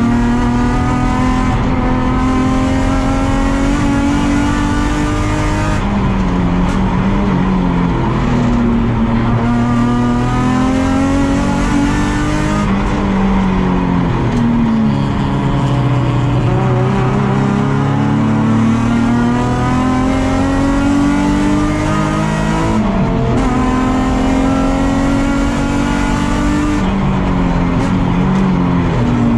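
Nissan 350Z race car's V6 engine heard from onboard at racing speed. It climbs in pitch through each gear, drops sharply at each shift or lift for a corner, and repeats several times.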